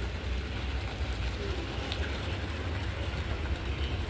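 Outdoor ambience: a steady low rumble with a faint even hiss over it, and no distinct single event.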